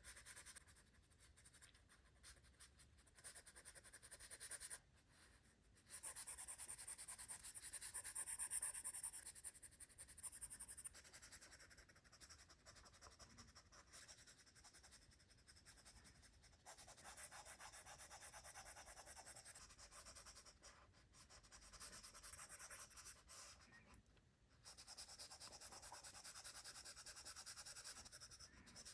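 Faint scratching and rubbing of a stylus drawing on an iPad screen, in strokes of a few seconds each that start and stop.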